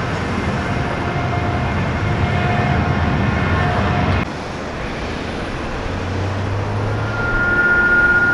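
Airport apron noise: a steady rumble of vehicle and aircraft engines that changes abruptly about four seconds in. A low hum and a steady high whine come in near the end.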